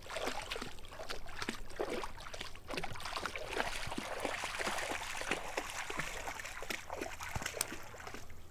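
River water lapping and trickling against shoreline rocks: a steady run of small, irregular splashes and drips.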